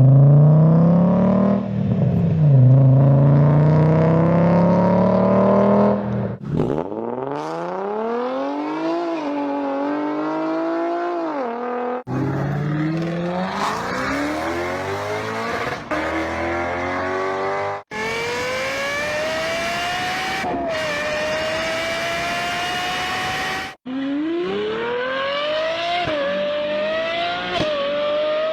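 A run of separate V-engine car clips, each a few seconds long, cut hard one to the next. In each the engine accelerates with rising pitch and falls back at gear changes before climbing again.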